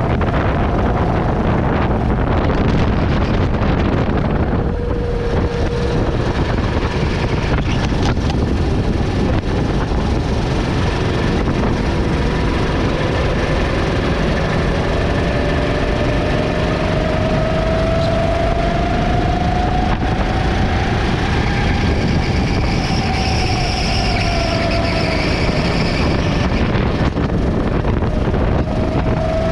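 A motor vehicle running under loud, steady noise, with an engine tone that rises slowly over several seconds and then falls back.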